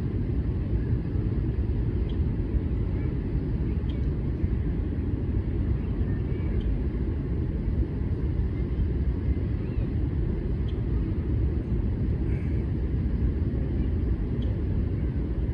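Outdoor ambience dominated by a steady low rumble, with faint short bird chirps every second or two.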